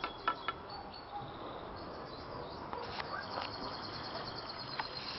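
Small birds chirping, with a high, rapidly pulsing trill starting about three seconds in, over a steady outdoor hiss.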